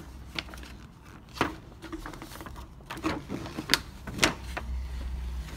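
A glossy paper poster being unrolled and handled, the stiff sheet giving a handful of sharp crackles and snaps.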